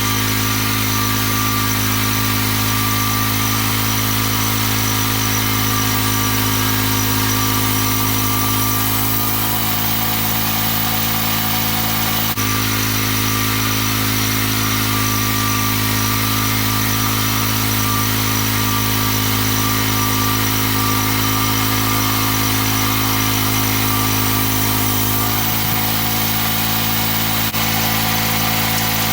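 Small gasoline engine of a homemade band sawmill running steadily, its note shifting slightly a few times.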